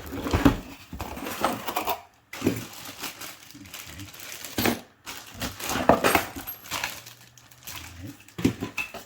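Small hard parts of a Luxe Neo 120 bidet attachment and its packaging being handled, clattering and clinking with irregular knocks.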